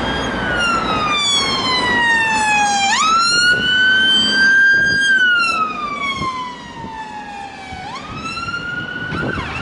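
Emergency vehicle siren wailing in a slow cycle: a held high note, a long falling glide, then a quick jump back up, heard twice. It grows quieter after about five seconds as the vehicle moves away.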